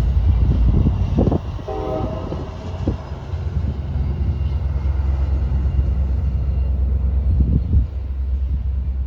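Train passing with a low, steady rumble, and a brief horn note about two seconds in.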